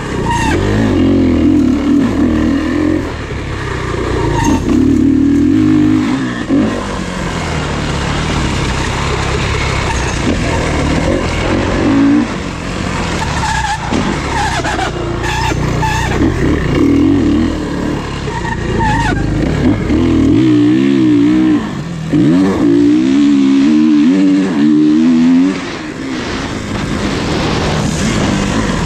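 Racing dirt bike engines revving hard on an off-road course, pitch climbing and dropping again and again as the riders shift and get on and off the throttle, louder as they pass close.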